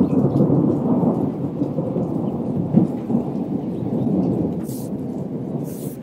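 Thunderstorm: thunder rumbling and rolling in slow swells, with rain, and a short hiss twice near the end.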